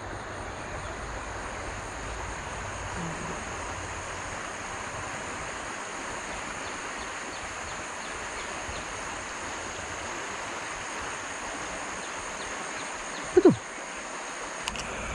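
Steady outdoor background noise with a high, constant insect drone over it. A single short rising call cuts in about thirteen seconds in.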